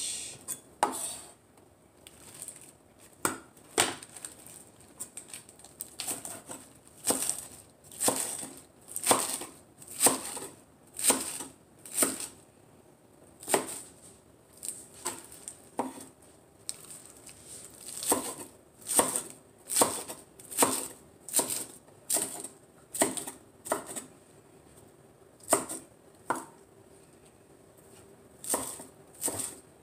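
Knife chopping through a bunch of lettuce: an uneven run of sharp cuts, about one or two a second, with short pauses between runs.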